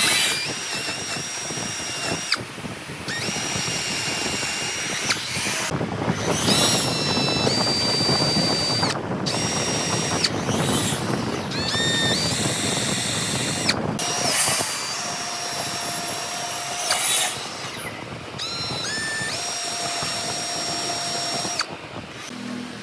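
Power drill run in about seven short bursts of one to two seconds each. In each burst the motor whine climbs as it spins up, holds a steady pitch, then cuts off, with a rough noise of the bit working the wood underneath.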